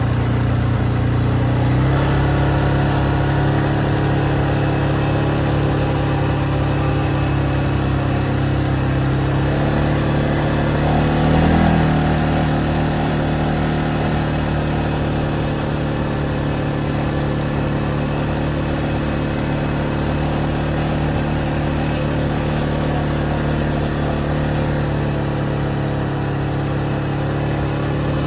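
Vehicle engine running steadily on the move. Its pitch steps up about two seconds in, and around the middle it briefly rises and falls, a little louder, then settles to an even drone.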